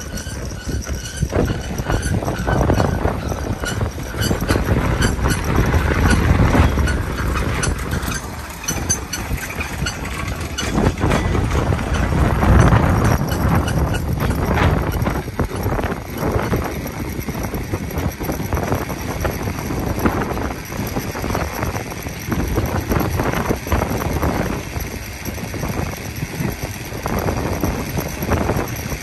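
Cable-hauled Great Orme tramcar running on its rails, a dense rattle of rapid clacks over a low rumble. It is loudest a little before the middle as the car passes close, then settles into a steadier clatter as it draws away.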